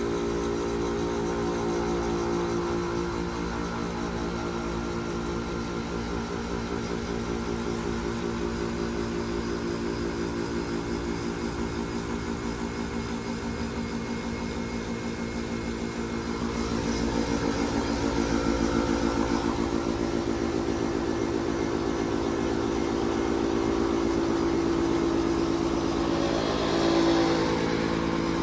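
A 2015 Carrier Comfort 4-ton heat pump's outdoor unit running with a steady mechanical hum of several pitched tones, growing louder about halfway through and swelling briefly near the end. The unit is failing, its compressor overheating and its fan struggling, which the owner puts down to a bad capacitor.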